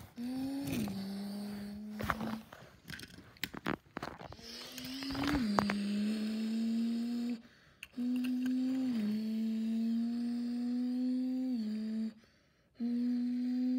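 A child's voice making race-car engine noises, humming long held notes that each step down in pitch, with short breaks between them. A few clicks and knocks of toy cars being handled sound in the first few seconds.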